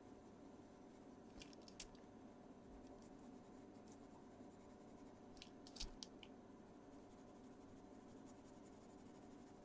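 Faint scratching of a Caran d'Ache Pablo coloured pencil on a colouring-book page, in short strokes about a second and a half in and again about five and a half seconds in. Between the strokes there is near silence.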